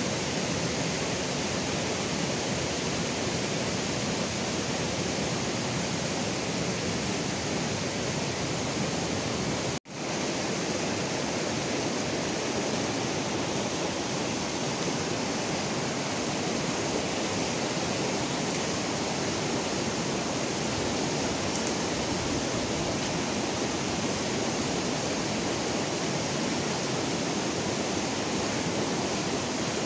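Steady rush of a rocky river running over stones, with a brief dropout about ten seconds in.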